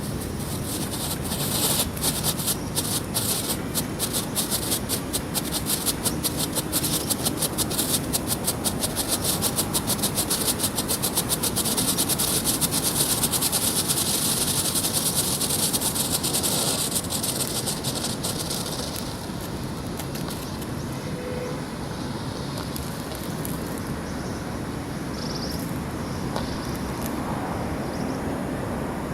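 Smoke-and-crackle firework burning: a steady high hiss with rapid crackling that grows denser, then dies away about two-thirds of the way through, leaving a quieter outdoor background.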